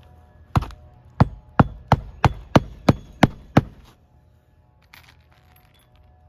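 Nine quick hammer blows, about three a second, typical of hand-nailing a roofing shingle.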